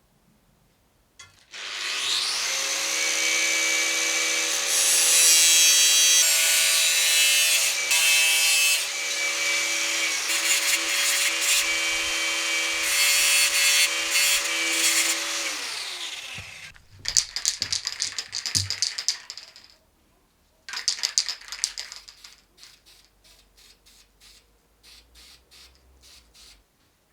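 Electric power tool running and working sheet metal with a steady whine for about fourteen seconds, then its motor winding down. A few clattering knocks follow, then a short rasp and some light clicks.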